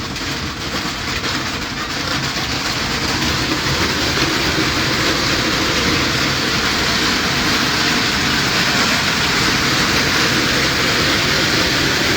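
Hailstorm: a dense, continuous clatter of hailstones striking, building over the first couple of seconds and then holding steady.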